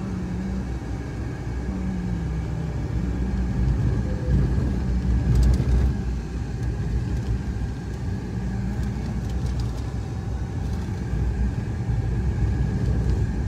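Steady low road rumble and engine hum inside a moving car, its tyres running over tarmac.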